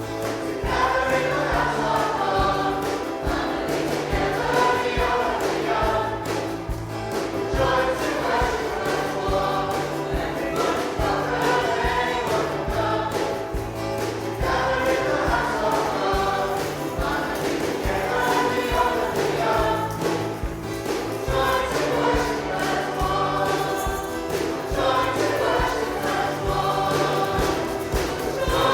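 Worship song: a group of voices singing together over a band with a held bass line.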